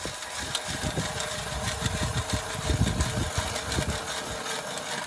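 Hand ice auger boring through lake ice: the steel cutting blades make a steady grinding scrape with irregular low crunches as they bite into the ice.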